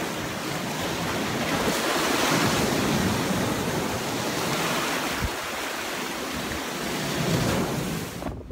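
Sea surf breaking and washing against the foot of a chalk cliff: a steady rush of water that swells and eases, then cuts off abruptly near the end.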